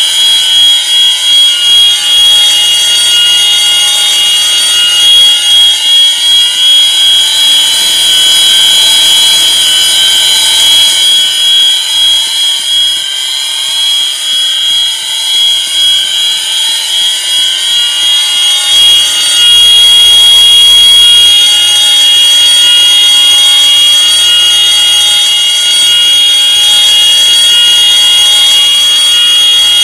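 Fire alarm horns sounding the slow whoop signal during a system test: a rising sweep repeated every couple of seconds, over a steady high-pitched ringing tone.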